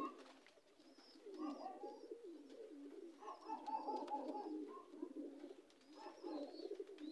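Domestic pigeons cooing faintly, several low warbling coos one after another, with faint short high chirps over them.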